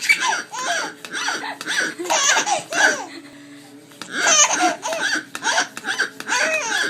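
A five-month-old baby laughing in repeated short bursts, with a brief pause about three seconds in before the laughing picks up again.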